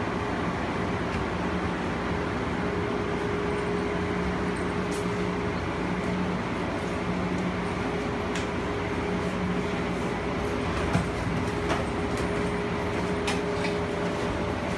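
Steady running hum and rumble inside a car of the BART Oakland Airport Connector, a cable-hauled automated people mover, as it comes into the airport station, with one sharp click about eleven seconds in.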